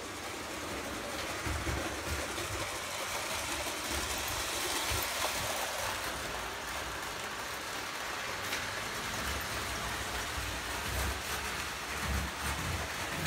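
Lionel O gauge toy trains running on three-rail tinplate track: a steady rolling rumble and hiss of metal wheels on the rails and the electric motors.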